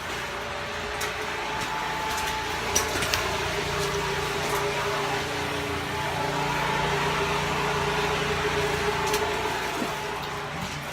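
A steady engine-like drone with a constant hum, swelling a little in the middle and easing near the end, with a few faint clicks.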